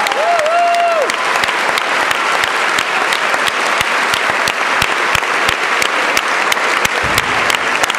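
Audience applauding steadily in a large hall, with a brief cheer from one voice in the first second.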